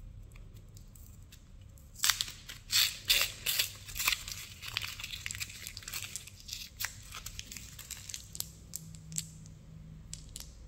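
Foil-and-paper wrapper of a Mentos roll being torn open and crinkled by hand: a run of loud crackly tearing starts about two seconds in, then eases into softer crinkling with a few small clicks near the end.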